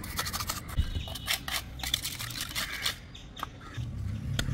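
Irregular scrapes and light knocks of masonry work: a trowel working mortar and stone blocks being set.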